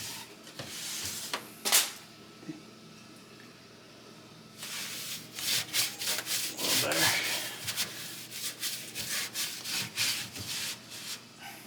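A rag with baking soda paste scrubbing grease off a range hood's fan parts in quick back-and-forth strokes. There is a sharp click about two seconds in, then a short pause before a longer, steady run of scrubbing.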